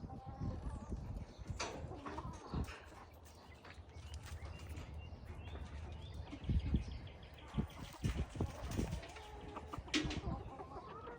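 Backyard hens clucking softly on and off, with scattered low thumps and rustles throughout.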